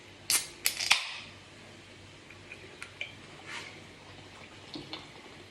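A sparkling-water drink being opened: three sharp snaps within the first second, the last running into a short hiss of escaping gas. Faint scattered clicks follow.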